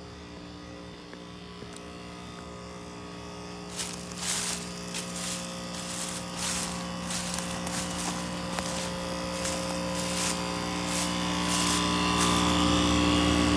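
1996 two-ton Heil heat pump outdoor unit running in heat mode: a steady buzzing hum from its scroll compressor and fan, growing gradually louder. Rushing air noise comes and goes from about four seconds in.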